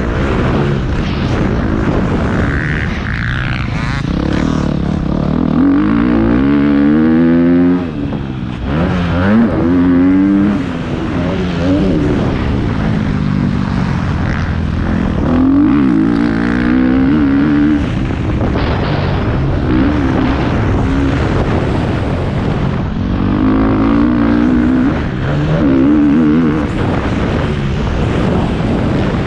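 Motocross bike engine revving hard as it is ridden round a dirt track, heard close up from the rider's camera. The pitch climbs again and again as the throttle is held through the gears, with short dips where the throttle is shut off, one sharp dip about eight seconds in.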